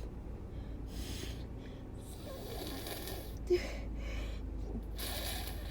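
Congested breathing through a stuffed-up nose during a cold or allergy attack, a series of soft noisy breaths, with one short vocal noise about three and a half seconds in.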